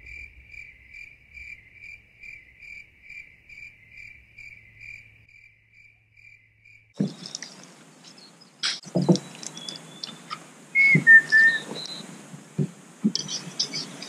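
A cricket chirping at night, a steady run of high pulses about three a second that fades out about seven seconds in. Then scattered knocks and clatter as gear is handled at a camp stove.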